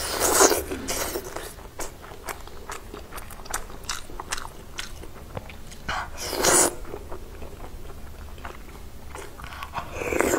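Close-up eating sounds of a person slurping a soft braised stuffed green pepper into the mouth and chewing it: louder slurps near the start, about six seconds in and near the end, with wet chewing clicks and lip smacks between.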